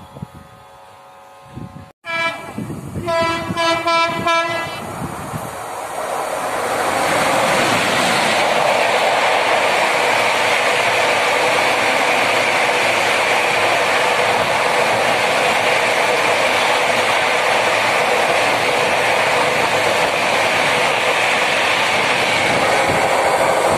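An Indian Railways WAP-7 electric locomotive's horn blasts about two seconds in, then the Jan Shatabdi Express runs through at speed, its coaches passing close in a loud, steady rush of wheels on rail.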